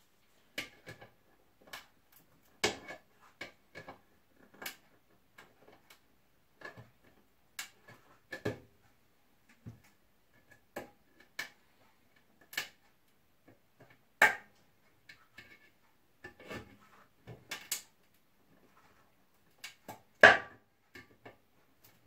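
Irregular clicks, taps and clunks of tins and small objects handled on a tabletop while a varnish coating is being prepared, with a few louder knocks.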